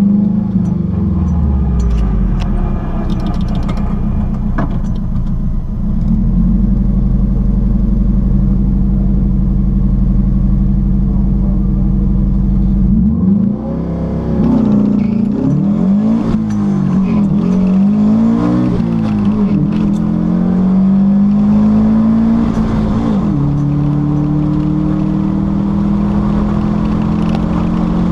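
Subaru engine of a drag-racing VW Beetle heard from inside the cabin. It runs at a steady pitch for the first half, then about halfway in it launches and the revs climb and drop again and again through the gear changes. Near the end it settles to a steadier, slowly rising note at speed.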